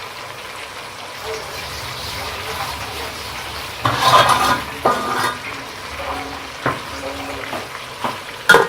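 Chicken pieces frying in hot oil in a pan, a steady sizzle. From about four seconds in, metal cookware clatters, with several sharp knocks and a few loud clanks near the end.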